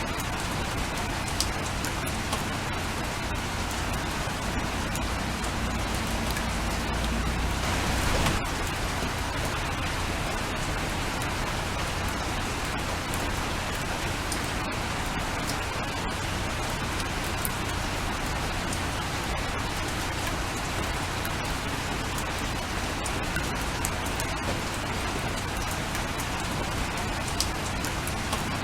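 Steady rain falling, an even hiss with many small sharp drop ticks scattered through it. A low rumble swells about six seconds in and fades just after eight seconds.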